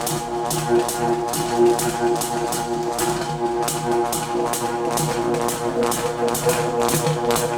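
Synthesized sci-fi sound effect: a steady, buzzy low drone of several held tones, overlaid with a hissing pulse that repeats about three times a second.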